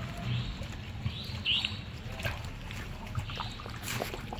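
Water sloshing and trickling in a koi pond, with a few small splashes as a hand strokes a koi at the surface, the sharpest near the end. A bird chirps repeatedly in the background, short high chirps about once a second.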